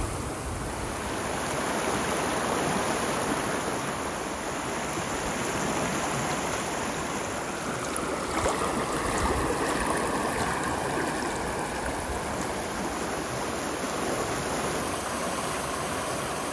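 Shallow, fast creek rushing over rocks: a steady wash of running water.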